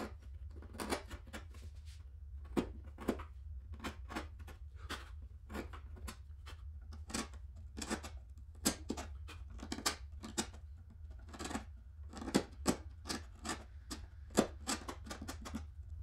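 Wood chisel pushed by hand into MDF, paring out the corners of a notch: a string of short, crisp cuts and scrapes, irregular, about one to three a second.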